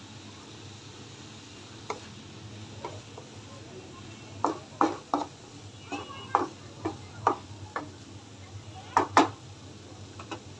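Utensil tapping and scraping against a cooking pan while stirring, in irregular clusters of short knocks, over a low steady hum.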